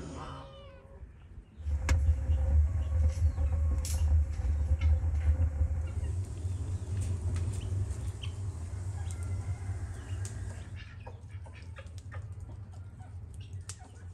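Brushwood fire blazing in a brick pit oven: crackling and popping over a low rumble of flames, starting about a second and a half in. Near the end it drops to quieter outdoor sound with scattered bird calls.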